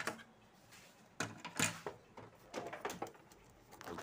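A handful of separate clicks and knocks from hard plastic printer parts (a scanner assembly and its hinge pieces) being handled and moved.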